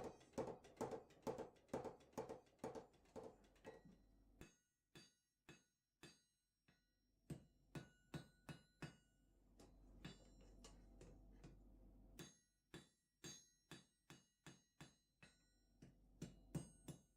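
Hammer blows on an anvil while forging a steel chisel blank. A quick run of about two or three strikes a second for the first four seconds, then sparser strikes with the anvil ringing after each.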